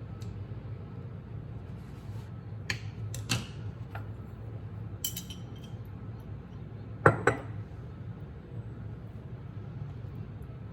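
Kitchen clatter of dishes and utensils: a few scattered clinks, then a louder pair of knocks about seven seconds in, over a steady low hum.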